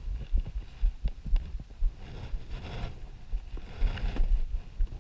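Footsteps crunching down through deep snow, with irregular low thuds on the microphone from the moving camera. Louder, noisier crunches come about two seconds in and again near four seconds.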